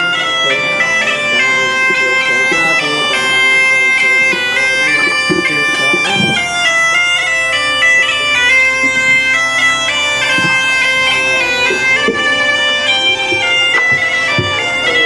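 Asturian bagpipe (gaita) playing a melody of stepping notes over one steady drone.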